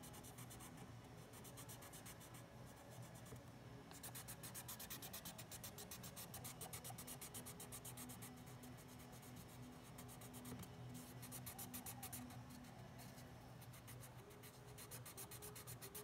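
Felt-tip marker scratching across cardboard in quick, repeated strokes, quiet and close to the microphone. The strokes come in short spurts at first and run almost continuously from about four seconds in.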